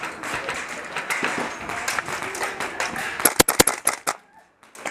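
Gas blowback airsoft rifle firing a quick string of about four sharp pops over a crackly background of small clicks and movement noise. The sound drops away briefly near the end.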